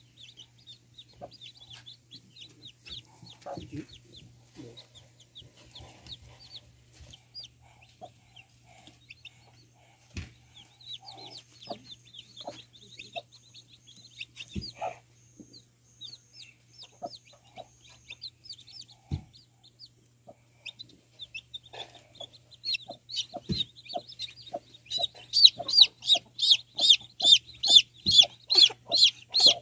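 Young chicks peeping in short high chirps, with a hen giving low clucks now and then. Near the end the peeping turns loud and rapid, about three peeps a second.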